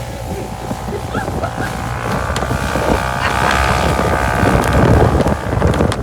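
Side-by-side UTV engine pulling away and accelerating, its pitch climbing over a few seconds, with wind buffeting the microphone.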